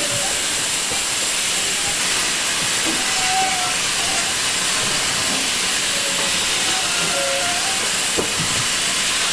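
Steam shrink tunnel hissing steadily as shrink-wrapped coconuts pass through it on a conveyor.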